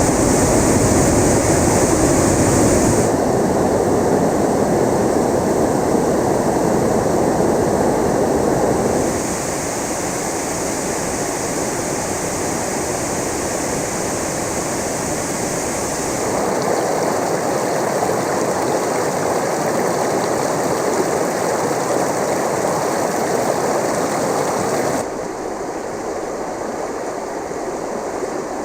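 Water of a stream running steadily, a string of separate recordings that change abruptly four times, each with a different mix of deep rushing and higher splashing.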